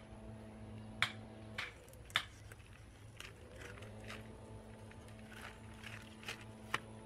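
Fillet knife working through a large red drum along its backbone and rib cage, giving a series of short sharp clicks and crackles at irregular intervals. A steady low hum runs underneath and drops out briefly near the middle.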